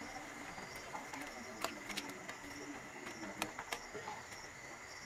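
A few light clicks of a metal spoon against a metal wok as noodles are stirred in water, over a steady faint high tone.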